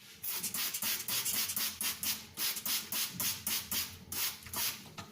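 Knife blade stroked rapidly back and forth on a fine-grit (JIS 6000) aluminium-oxide whetstone, a steady rasping scrape at about four to five strokes a second.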